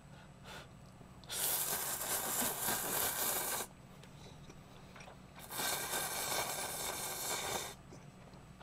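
A man slurping Shin Ramyun instant noodles from chopsticks: two long, loud slurps of about two and a half seconds each, the first about a second in and the second about five seconds in.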